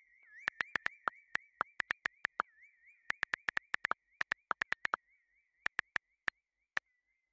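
iPhone keyboard key clicks as a text message is typed: quick runs of sharp taps with short pauses between, and a last single tap near the end. Under them, a faint warbling high tone fades away.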